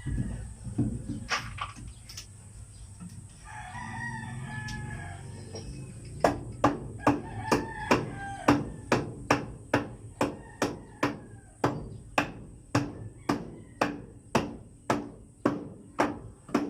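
A rooster crows once, a few seconds in. Then a hammer starts striking, evenly spaced at about two blows a second, most likely nailing the wooden frame of the pen door.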